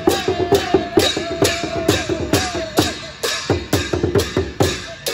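Marching parade percussion: a large drum and hand cymbals beating a steady rhythm of about two strong strokes a second, with lighter strokes between. A wavering held tone sounds over the beat until about three seconds in.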